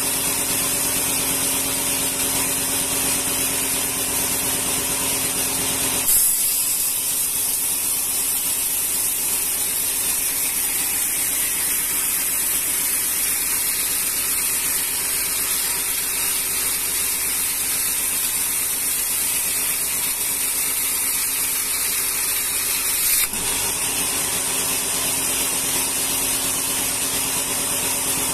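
Carriage band sawmill running, its blade cutting through rengas wood with a steady high hiss. The lower machine hum drops away abruptly about six seconds in and comes back abruptly near the end.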